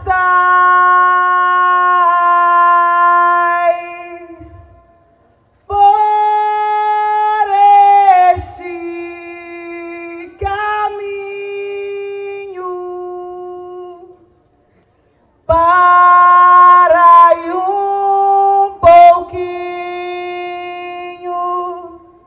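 A solo voice singing a slow, unaccompanied chant of long held notes, in three phrases with short pauses about four and a half and fourteen seconds in.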